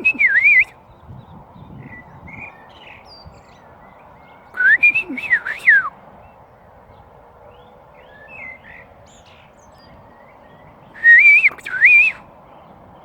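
Bird song exchange: three loud whistled phrases of gliding notes come about five to six seconds apart, with faint short bird chirps in between.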